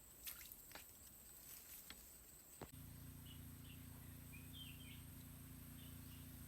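Faint outdoor ambience: a few sharp clicks, then about three seconds in a steady low hum sets in, with faint short high chirps over it.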